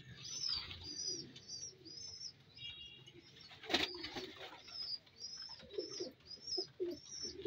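Loft of Satinette pigeons: a loud flurry of wing flaps a little under four seconds in, low pigeon cooing in the second half, and a bird chirping high and short about twice a second throughout.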